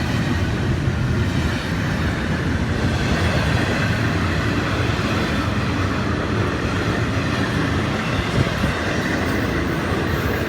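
Freight train rolling past close by: a steady noise of steel wheels running on the rails.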